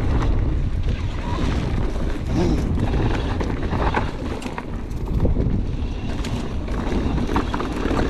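Wind buffeting the microphone over the rolling tyre noise and rattle of a mountain bike descending a dirt trail, with scattered short knocks from bumps.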